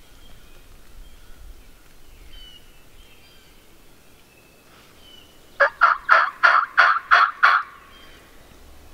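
Wild turkey gobbling once, a loud rapid rattle of about eight notes lasting about two seconds, a little over halfway through.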